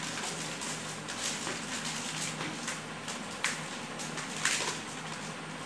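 Dried maize kernels being stripped off the cobs by hand and falling into a plastic tub: a steady rustling crackle of irregular dry clicks, with a couple of sharper clicks around three and a half and four and a half seconds in.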